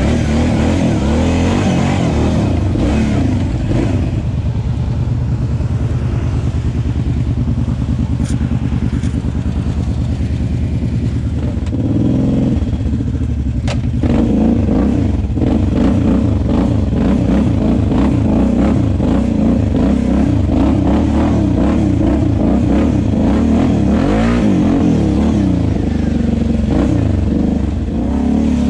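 Kawasaki KFX 700 ATV's V-twin engine running under throttle as it is ridden, revving up and down continuously. It gets louder about halfway through.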